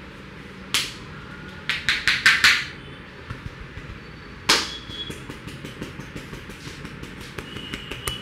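A barber's hands striking a head in a percussive head massage: one sharp slap, then a quick run of about five slaps, another single sharp slap, then lighter rapid taps.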